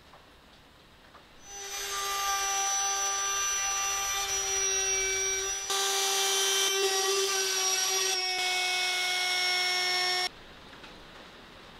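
Compact trim router running at high speed and cutting the edge of a walnut board, a steady high whine. It starts about a second and a half in, its tone shifts slightly twice, and it cuts off suddenly near the end.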